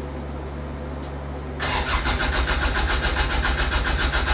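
Toyota 4A-GE engine being cranked over by its starter motor, beginning about a second and a half in with a fast, even chugging rhythm; it is being turned over to check for spark and does not catch. A steady low hum runs underneath before the cranking begins.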